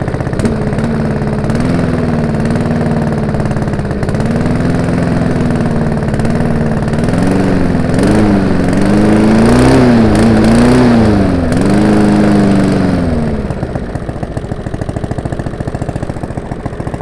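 Lawnmower engine running, its speed wavering up and down and climbing highest about ten seconds in, then dropping to a lower, steadier idle about thirteen seconds in.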